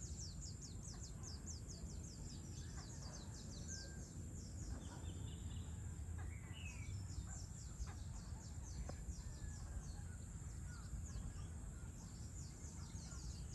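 Dusk bird chorus: many birds giving rapid, high, downward-sweeping chirps, thinning briefly around the middle, with a few scattered lower calls, over a faint low steady rumble.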